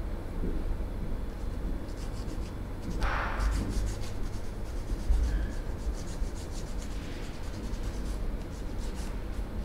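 Hands rubbing and stroking over skin in a massage: a run of soft scratchy strokes, with a fuller brushing stroke about three seconds in, over a low steady hum.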